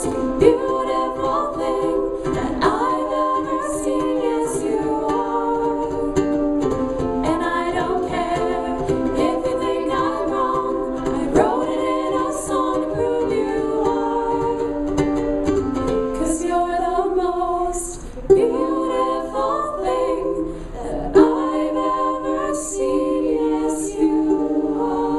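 Music: several voices singing sustained notes together over strummed ukulele.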